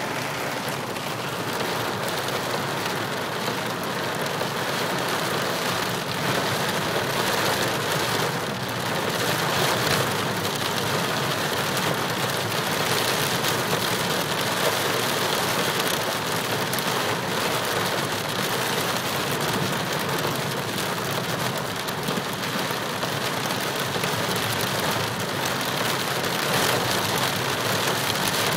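Heavy rain pouring down steadily in a violent thunderstorm, a dense even rush of rain on surfaces.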